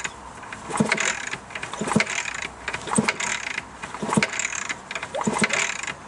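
Yamaha RS125 DX two-stroke engine being turned over by hand on the kickstart, five kicks about a second apart, each a short burst of mechanical noise; the engine, freshly filled with new oil, turns over without starting and sounds really good.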